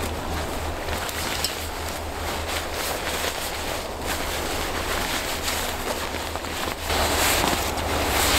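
Nylon sleeping bag and backpack fabric rustling and swishing as the bag is stuffed into the pack by hand, getting louder about seven seconds in, over a steady low rumble.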